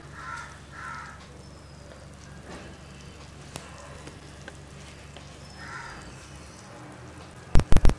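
Low steady background with a few short faint calls, then a quick run of four sharp, loud knocks near the end.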